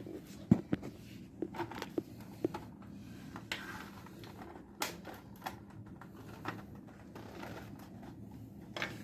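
Scattered light clicks and taps of small parts being handled as a UPS is reassembled by hand, with one sharper knock about half a second in.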